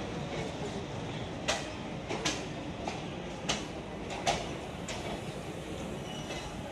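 Passenger train coaches rolling past with a steady rumble, and sharp clacks of the wheels over rail joints that come in two pairs, about a second and a half in and again after about three and a half seconds.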